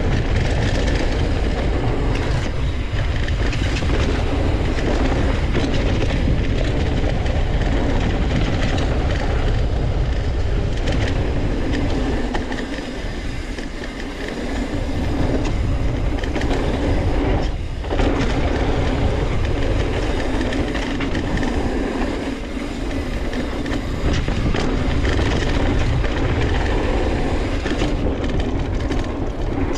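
Mountain bike riding fast down a dirt trail: steady wind rush on the camera microphone and tyres rolling over dirt and rocks, with frequent small knocks and rattles from the bike. The noise eases briefly twice near the middle.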